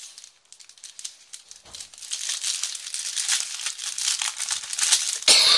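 Clear plastic packaging crinkling as it is handled and opened. Faint at first, louder from about two seconds in, with a loud burst of crackling near the end.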